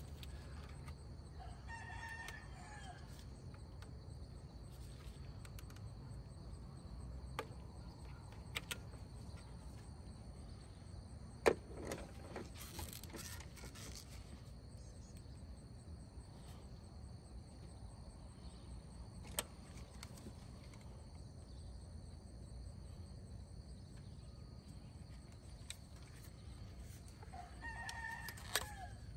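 A rooster crowing twice, once about two seconds in and again near the end, each call lasting a second or two. A few sharp clicks fall in between, the loudest about halfway through.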